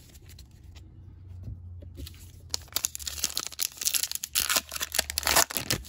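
A Topps Heritage baseball card pack's wrapper being torn open by hand. It is quiet at first, then about halfway through comes a dense run of crinkling and crackling tears that peaks just before the end.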